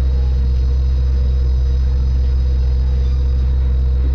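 Palm Jumeirah Monorail running, heard from inside the carriage: a steady low rumble with a steady hum above it.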